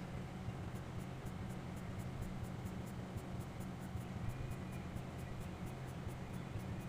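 Quick, evenly repeated drawing strokes scratching on paper, about four a second, over a steady low hum.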